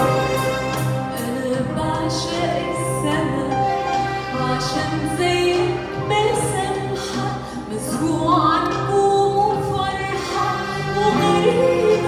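A woman singing an Arabic song live with a string orchestra of violins and cello.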